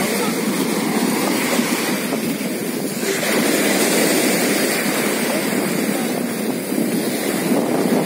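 Rough sea surf breaking on the beach and washing up the shore in foam: a continuous rushing that swells a little in the middle.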